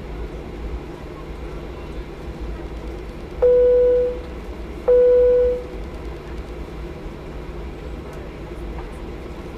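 Inside the cabin of a Norwegian Boeing 737-800 taxiing: a steady low rumble of the idling engines and cabin air, broken by two loud cabin chimes of the same pitch about a second and a half apart, each fading within a second.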